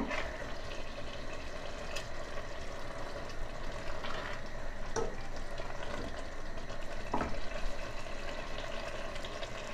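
Thick tomato and pepper sauce simmering and bubbling in a stainless steel pot while a wooden spoon stirs it, with a few sharp ticks about 2, 5 and 7 seconds in.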